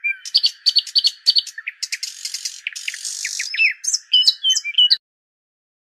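Morning birdsong: many small birds chirping and tweeting in quick, varied calls over a steady high hum, cutting off suddenly near the end.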